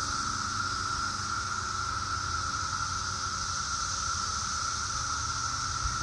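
Brood X periodical cicadas calling in chorus: a steady, unbroken hum of many males' mating calls, with a low rumble underneath.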